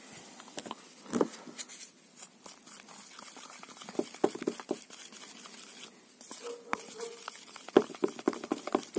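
A wooden stick stirring a runny slurry of cerium oxide powder and water in a small plastic cup, with irregular scraping and clicking of the stick against the cup, quicker near the end.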